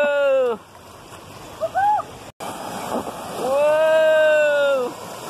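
Rushing river water pouring through a small rapid, with a high voice letting out two long, held yells, one at the start and one near the end, and a short rising squeal in between. The sound cuts out for an instant a little over two seconds in.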